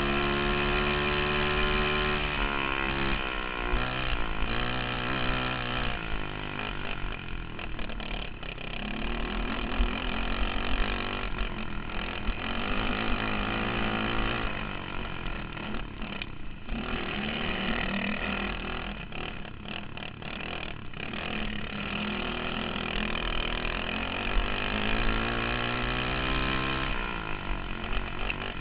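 Racing kart engine heard from the driver's seat, running hard around a dirt track, its pitch falling and rising again and again as the throttle comes off and goes back on.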